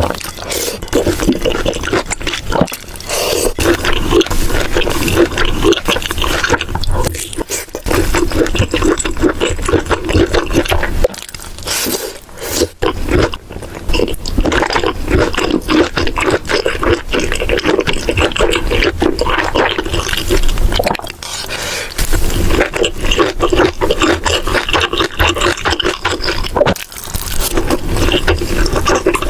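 Close-miked eating sounds: continuous wet chewing and mouth smacking, dense with short clicks and crackles, broken by a few brief pauses.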